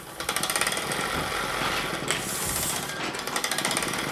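Small model steam engine kit running on air from a hand balloon pump instead of steam, its piston and flywheel clattering in a rapid, even rhythm, with a burst of air hiss about two seconds in. The engine is turning freely after being lubricated.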